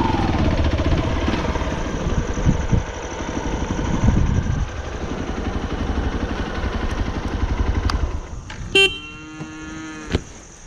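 Hero XPulse 200's single-cylinder engine running, then going quiet about eight seconds in. Near the end a steady held tone sounds for about a second, followed by a single click.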